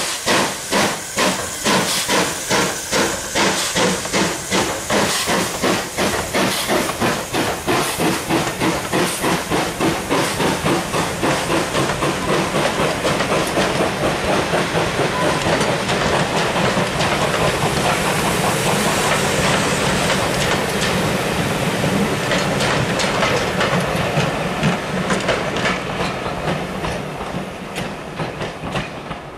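Ivatt Class 2MT 2-6-2 tank steam locomotive No. 41312 working a passenger train past, its chuffing exhaust beats about two a second and quickening as it gathers speed. The beats then give way to the coaches rumbling and clattering over the rail joints, fading away near the end.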